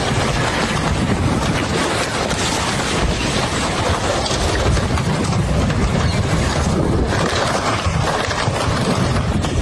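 Floodwater rushing, a steady loud roar of water with no let-up.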